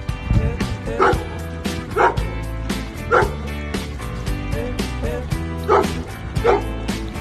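A dog barking about five times, in short yips and barks, over background music with a steady beat.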